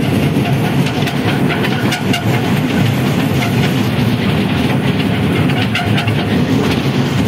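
Park toy train's carriages rolling along the track: a steady low rumble with scattered clicks from the wheels running over the rails.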